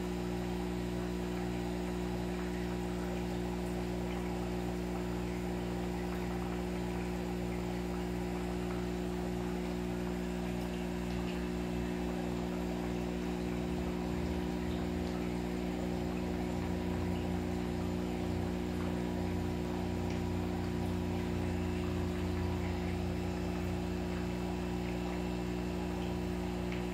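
Steady electrical mains hum made of several even low tones, with some low rumbling about halfway through.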